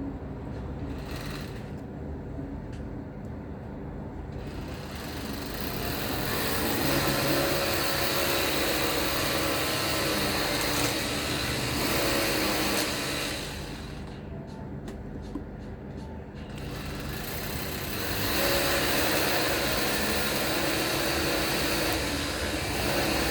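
Jaguar X-Type engine running, its sound swelling louder for several seconds, easing off, then swelling again near the end.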